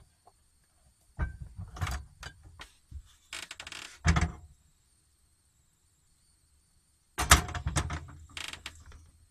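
Kitchen handling clatter: a few knocks as bottles are set down on a shelf, then the metal frying pan being shifted on the gas hob's wire pan support, with the loudest rattle of pan on metal grate near the end.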